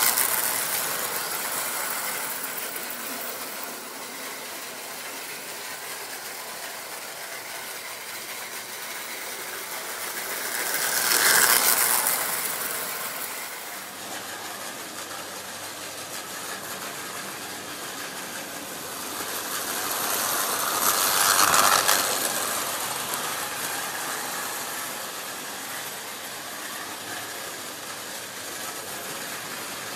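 Prewar American Flyer toy electric trains running on three-rail tinplate track, a steady rolling rattle and clatter. It swells three times as a train passes close by: at the start, about 11 seconds in and about 21 seconds in.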